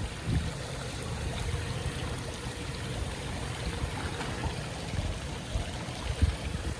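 Swimming-pool water sloshing and trickling as someone moves through it, with a few low thumps.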